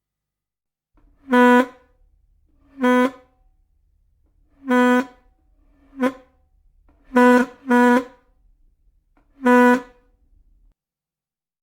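A horn honking seven short blasts at one steady pitch, at uneven intervals, two of them close together about three-quarters of the way through and one shorter than the rest.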